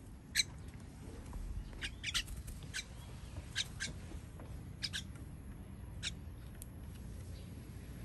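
Common myna giving short, sharp call notes, about ten of them at irregular intervals.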